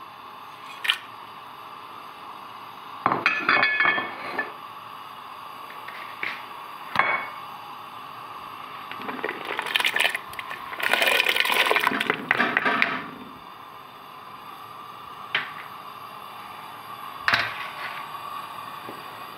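Cooking ingredients going into a metal pressure cooker of water. Scattered clinks and knocks of utensils and containers against the pot are followed, about ten to thirteen seconds in, by a longer stretch of splashing as chopped onions, bay leaves and whole spices are tipped into the water.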